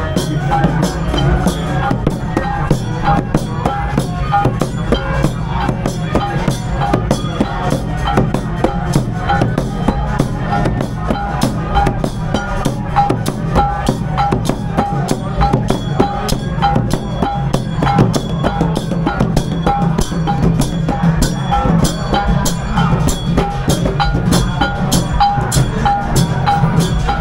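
Music with a steady, fast drumbeat, a short high note repeated over it.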